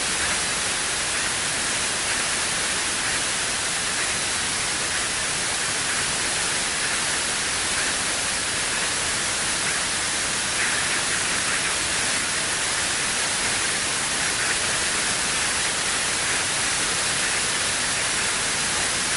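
Steady cabin noise of a Cessna P210 Silver Eagle in flight: its Rolls-Royce turboprop and the slipstream blend into one even hiss at an unchanging level.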